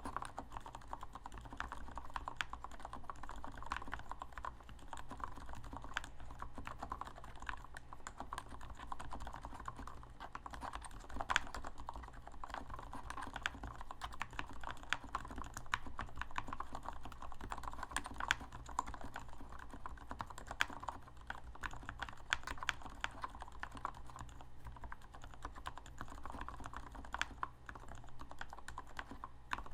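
Continuous fast typing on a modded Keychron K2 mechanical keyboard: a dense, steady stream of key clicks with the odd louder keystroke.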